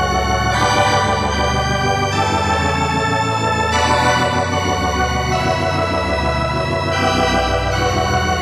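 Dungeon synth music: sustained organ-like synthesizer chords over a low bass, the chord changing about every second and a half.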